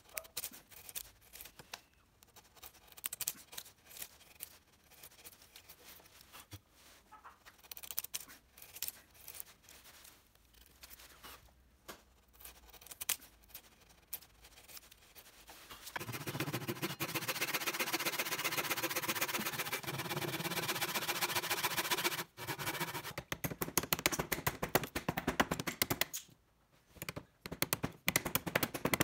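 A hand tool working a small piece of wood. At first there are scattered light taps and scrapes. About 16 seconds in, a loud, dense stretch of rapid cutting or rubbing strokes runs for about six seconds, then breaks into shorter bursts.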